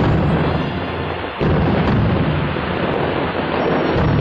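Fireworks shells bursting: three heavy booms, at the start, about a second and a half in, and near the end, each followed by a long low rumble.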